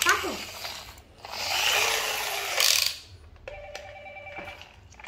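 Pink toy telephone on wheels giving out its electronic sounds. It starts with a short falling sweep, then a loud noisy sound lasts about a second and a half, and from about three and a half seconds in a tinny electronic tune of steady beeping notes plays.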